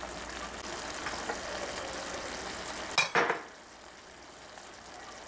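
Pan of vegetables in vinegar broth simmering and sizzling steadily. About halfway through comes a sharp knock with a brief clatter, then the simmer is quieter.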